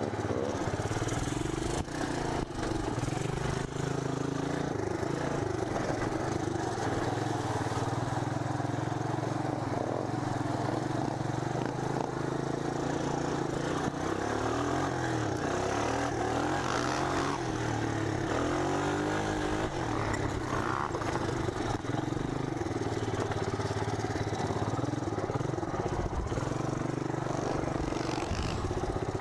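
1985 Honda ATC250SX three-wheeler engine running under way on rough ground, its pitch rising and falling several times about halfway through as the throttle is worked.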